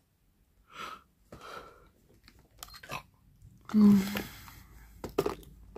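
A person yawning: breathy air through a wide-open mouth, a few wet mouth clicks, then a short voiced groan about four seconds in, the loudest sound, with a brief vocal sound after it.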